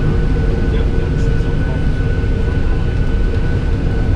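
Steady cabin drone inside a Boeing 737-800: a low rumble with a steady whine running over it.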